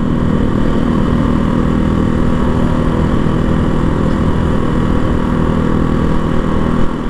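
Janus Phoenix 250's single-cylinder four-stroke engine running steadily at an even road speed, heard from the rider's seat.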